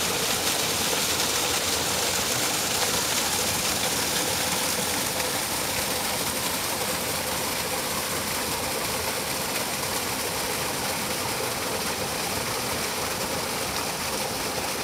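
Mountain stream running over granite rocks: a steady rush of water that eases slightly partway through.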